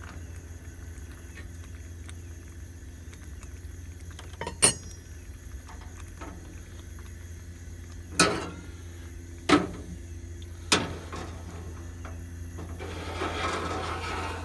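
Metal cookware set down on the steel grate of a Coleman 413G two-burner camp stove: one sharp clank, then three more about a second apart, over a steady low drone. A rushing hiss swells near the end as the burner is turned down.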